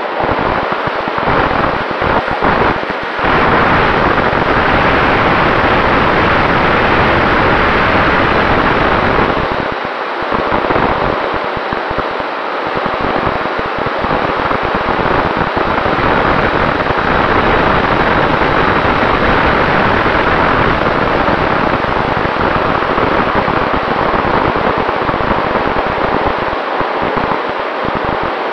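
Sonicmodell Mako FPV wing in flight, heard through its onboard camera: a loud, steady rush of wind over the microphone mixed with the noise of its brushless motor and propeller, with a faint steady tone running under it.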